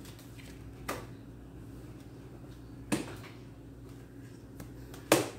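Three short, sharp clicks about two seconds apart, the last the loudest, like tarot cards being handled and set down on a table. Under them runs a low, steady electrical hum.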